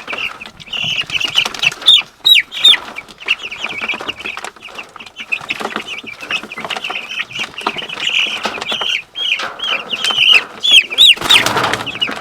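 A flock of young meat chickens peeping: many short, high, overlapping calls without a break. A brief rustle comes about a second before the end.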